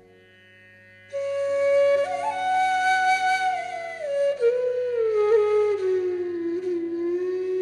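Background music: a slow flute melody sliding between long held notes over a steady drone, entering about a second in after a brief quiet.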